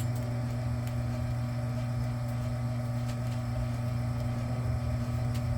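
Vevor electric wire stripping machine's motor running with a steady hum while a small 14–16 gauge wire is fed through it, with a few faint clicks.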